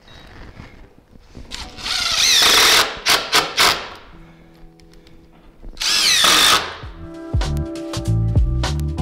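DeWalt 20V cordless drill driving Phillips screws into wooden balusters: two runs of the motor, each about a second long, the first followed by a few short trigger blips. Background music with a beat comes in loudly near the end.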